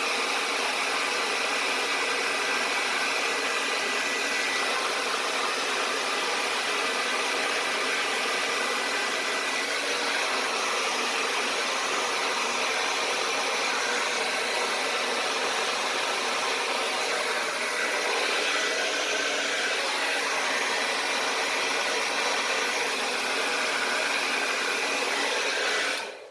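Hand-held hair dryer running steadily through its pointed concentrator nozzle, blowing air with a faint motor whine; it cuts off at the very end.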